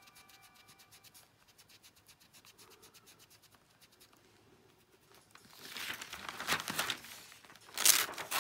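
Clear plastic sheet crinkling and rustling as it is lifted and slid across the fabric, in loud swishes starting about five seconds in.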